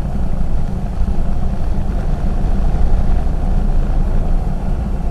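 Single-engine air tanker's engine and propeller running steadily, heard from on board as a constant low drone.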